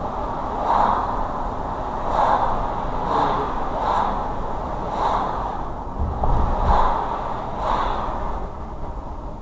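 Road noise from a moving car, with a soft whooshing pulse repeating roughly once a second and a low thump about six seconds in.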